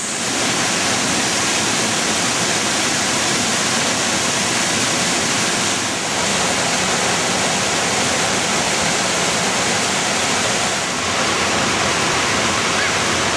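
Waterfall and cascading river water rushing: a loud, steady noise of falling water that dips briefly about six and eleven seconds in.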